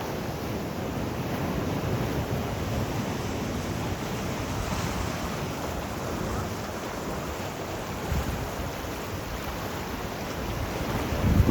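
Sea waves washing and surging steadily, with a louder low rumble just before the end.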